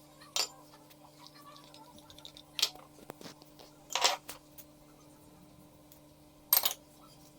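Four separate clinks and knocks of kitchen bowls and utensils while ingredients are tipped into a mixing bowl, over a steady low hum.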